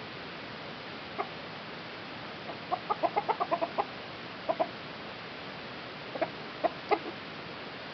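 Chickens clucking: a quick run of short clucks about three seconds in, then a pair and a few scattered single clucks, over a steady hiss.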